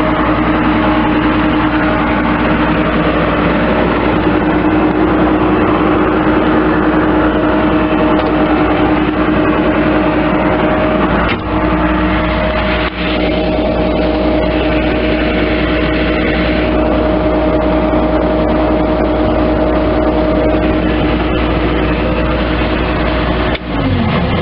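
Bobcat S185 skid steer loader's diesel engine running steadily at a constant speed. Loudness briefly dips twice about halfway through, and near the end the pitch falls as the engine is throttled down.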